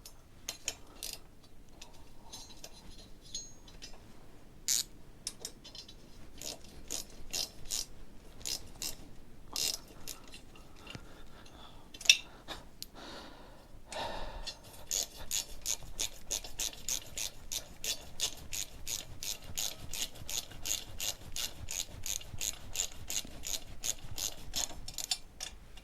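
Hand socket ratchet clicking as it is worked on the engine's bolts: scattered clicks at first, then from about halfway a steady run of about four clicks a second as a bolt is wound in.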